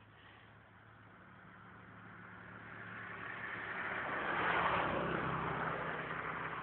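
A motor vehicle passing by: its noise swells for about four seconds, peaks, then fades away.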